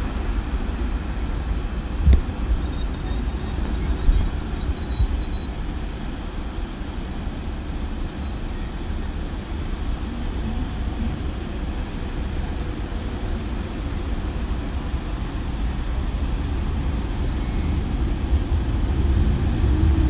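Steady road traffic noise with a deep rumble from idling cars, vans and buses. A couple of knocks sound about two and four seconds in, and a faint high whine runs from about two to eight seconds in. The noise grows louder near the end.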